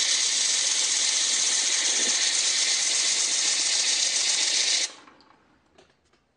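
Wooden model reciprocating air engine running on air blown by a vacuum cleaner: a loud, steady rush of air with the engine turning. About five seconds in the air cuts off suddenly and the sound dies away over about a second.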